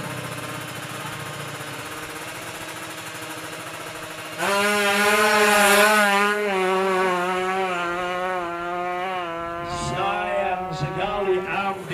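Two-stroke Kawasaki Ninja drag bike engine: a lower steady engine sound, then about four seconds in a loud, high rev held with a wavering pitch. Near the end the revs drop and break up into short choppy blips.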